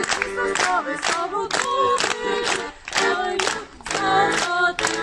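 Group of nuns singing together, with a sharp rhythmic beat of claps or slaps about two to three times a second.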